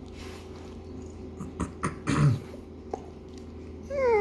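Dog vocalising in short bursts: a low, falling grumble about two seconds in and a higher, whiny rise-and-fall call near the end, with a couple of small clicks in between.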